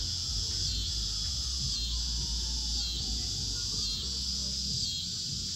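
Steady, high-pitched chorus of summer insects, typical of crickets, running without a break, with a low steady rumble underneath.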